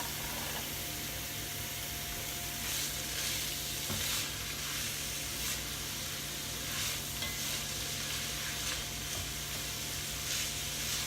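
Diced carrots, celery and onion (a mirepoix) sizzling steadily in hot olive oil in a pot, with a few soft scrapes in between.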